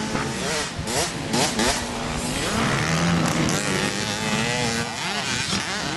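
Motocross dirt bike engines revving on the track, several overlapping, their pitch rising and falling with throttle and gear changes.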